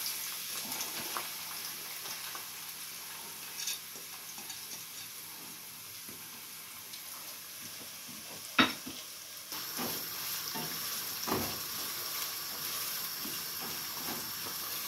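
Thinly sliced onions frying in hot oil and ghee in a pot, a steady sizzle, the start of frying them into beresta (crisp fried onions). A single sharp knock comes about eight and a half seconds in, and the onions are stirred with a silicone spatula in the second half.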